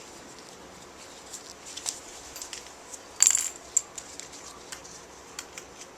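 Small metal parts clinking and tapping against each other as they are handled, with a louder ringing jingle about three seconds in.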